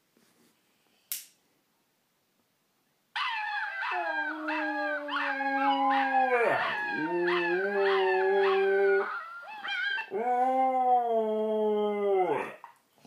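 Husky howling: one long howl that wavers and dips in pitch midway, then after a short pause a second, shorter howl that sinks in pitch at the end.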